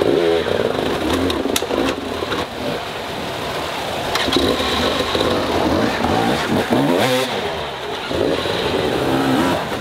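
Enduro dirt-bike engine revving hard in repeated bursts, pitch rising and falling, as the bike is worked up a staircase of rock steps under load. A few sharp knocks come in the first half.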